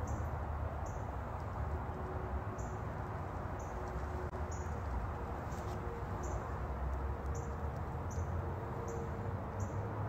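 Short high-pitched chirps repeating about once a second, over a steady low rumbling background noise.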